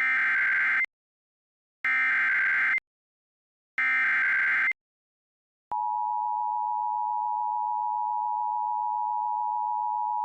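Emergency Alert System tones: three roughly one-second bursts of the warbling SAME digital header, about a second apart, encoding a Severe Thunderstorm Warning. A little over halfway through, the steady two-tone EAS attention signal begins and holds.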